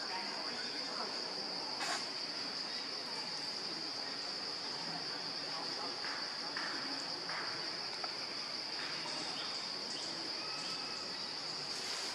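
Insects droning in a steady high-pitched chorus, with a brief sharp snap about two seconds in.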